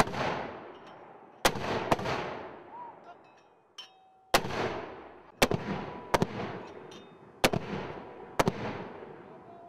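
Mortars firing: about eight sharp reports, some in quick pairs, each followed by a long rolling echo that fades away.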